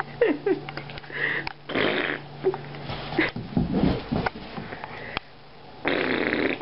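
Boxer dog sniffing in short noisy bursts, amid scattered knocks and bumps and a brief low rumble partway through.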